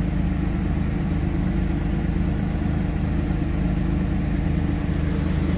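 Car engine idling steadily, an even low hum with a fine regular pulse and no revving.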